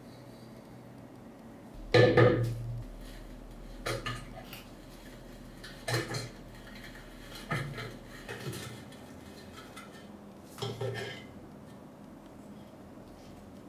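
Metal clinking and clanking as an adjustable wrench and the old oil lamp's metal parts knock together: about five separate knocks, the loudest about two seconds in.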